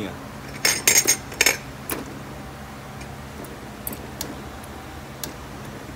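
Park Tool click-type torque wrench tightening a bicycle cassette lockring: a handful of sharp metallic clicks about a second in, the wrench's click signalling that the 40 N·m setting has been reached, then a few faint ticks.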